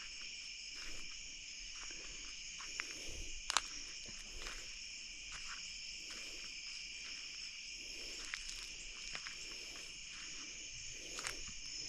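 Night insect chorus: crickets and other insects trilling steadily at several overlapping high pitches. A couple of faint clicks and soft low rustles sit underneath.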